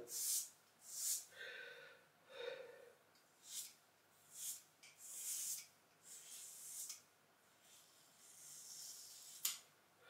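Leaf safety razor scraping across a lathered scalp in a run of short, faint strokes, about ten in all, with a sharp tick near the end.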